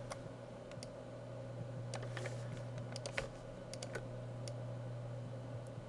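Scattered, irregular clicks of a computer mouse and keyboard during editing, over a steady low hum.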